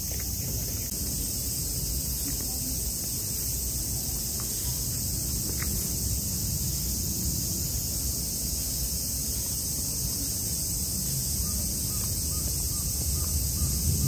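Steady, high-pitched buzzing of an insect chorus, over a low, steady rumble that swells near the end.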